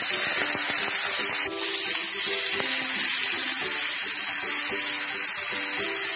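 Carrot and capsicum strips sizzling steadily in hot oil and ghee in a kadai, the hiss dipping for a moment about a second and a half in. Soft background music plays underneath.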